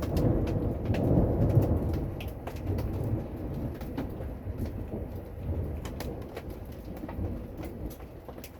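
Rolling thunder that swells to a deep rumble about a second in and slowly dies away. Scattered raindrops tick on the camper throughout.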